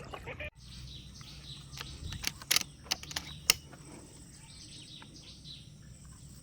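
Birds calling and chirping over a steady low background hum, with a handful of sharp clicks in the middle, one of them much louder than the rest.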